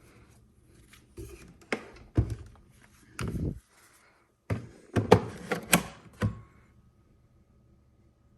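Hard plastic knocks and clunks of a Makita cordless tool battery being taken off a saw and slid onto its charger, a string of sharp clicks over about five seconds with the loudest near the end. A faint steady tone follows once the battery is seated.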